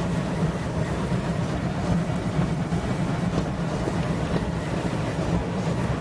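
Automatic car-wash spray drenching a car, heard from inside the cabin: a steady rush of water on the windshield and body, with a low hum underneath.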